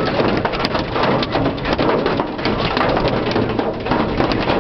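Hail and heavy rain pelting the car's roof and windshield: a dense, steady clatter of many small impacts over a wash of rain.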